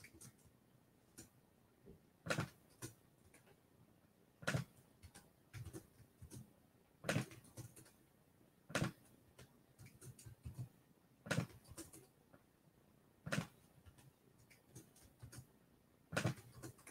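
Faint, scattered clicks and taps from a computer keyboard and mouse, about one every one to two seconds, with near silence in between.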